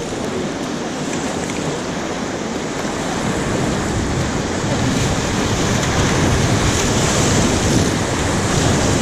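Whitewater of a river rapid rushing steadily, growing louder over the first few seconds.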